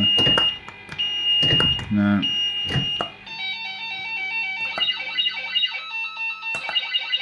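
Firecracker fruit machine sounding: repeated high electronic beeps with sharp clicks over a low hum, then from about three seconds in a fast bleeping electronic tune.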